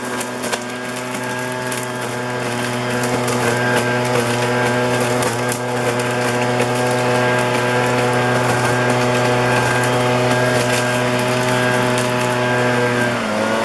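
Motorised street vacuum cleaner running steadily, its engine and suction fan giving a constant hum over a hiss with scattered small clicks. Its pitch drops slightly near the end.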